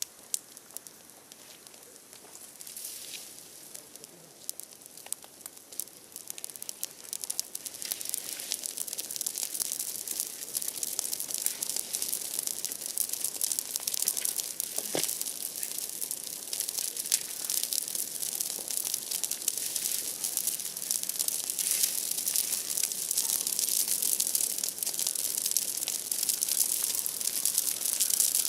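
Large bonfire of broken tree branches crackling and popping in a dense, rapid stream, growing steadily louder, with one sharper pop about halfway through.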